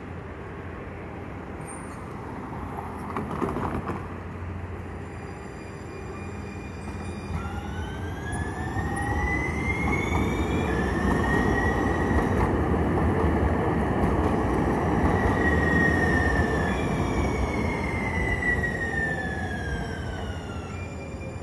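San Diego Trolley light-rail train passing, its rolling rumble swelling and fading. Over it a high whine with several pitches rises, holds steady for several seconds, then falls away near the end.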